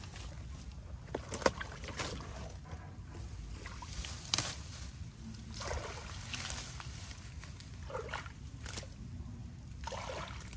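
Water sloshing and splashing in separate strokes about two seconds apart, with a couple of sharp knocks in the first half.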